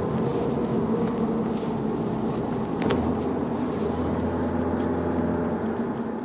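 Honda Civic 1.8's four-cylinder engine pulling steadily uphill, heard from inside the cabin with road noise, which the owner finds weak on the climb. A sharp click sounds about three seconds in, after which a deeper low hum grows stronger.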